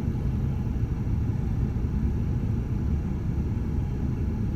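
Steady low road rumble of a moving car, engine and tyre noise heard from inside the cabin.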